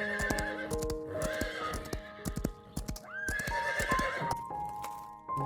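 A horse's hooves clopping in a run of sharp hits, with the horse whinnying and blowing in two bursts, over soft background music.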